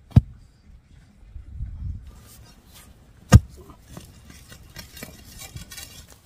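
Two sharp knocks about three seconds apart, with lighter clattering and rustling between them, like work with a tool striking something hard.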